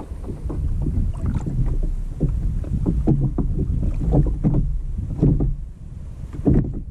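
Water slapping and knocking irregularly against a kayak's hull, over a steady low rumble of wind on the microphone.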